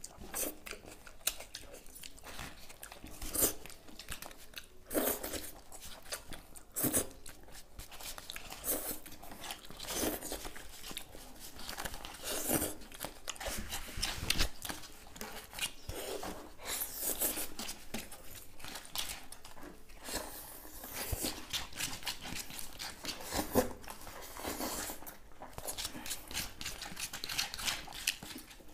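Two people eating chow mein fast with forks: forks scraping and clicking on aluminium foil plates in irregular bursts, with chewing.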